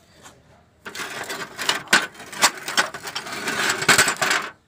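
A wrench working on the 12 mm water pump bolts: a rapid, irregular run of metallic clicks and scraping. It starts about a second in and stops abruptly near the end.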